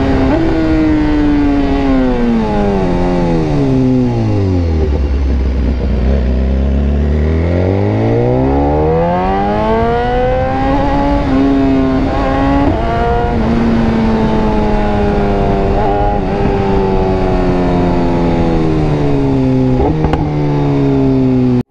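BMW S1000RR inline-four with an SC Project exhaust, heard from the rider's seat. The revs fall smoothly for about four seconds as the bike slows and hold low for a few seconds. They then climb steadily under acceleration, change pitch abruptly at a couple of gear shifts around the middle, and sink slowly while cruising.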